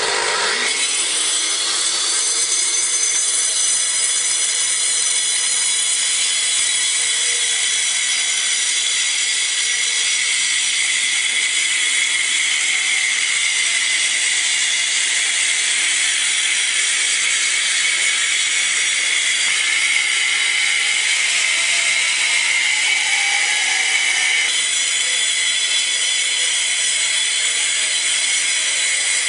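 Eibenstock EMF 150 twin-blade wall chaser starting up with a quick rising whine, then running steadily as it cuts a groove in a wall, with a high whine over a grinding hiss. The pitch shifts slightly near the end.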